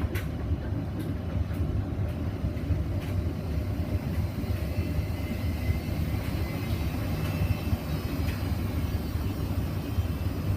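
Hoover Vision Dynamic washing machine spinning a blanket load: a steady low drum rumble with a faint motor whine coming in a few seconds in. The owner takes the load for out of balance.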